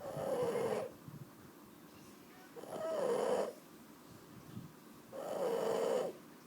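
Shar Pei dog snoring in its sleep: three snores, each just under a second long, about two and a half seconds apart.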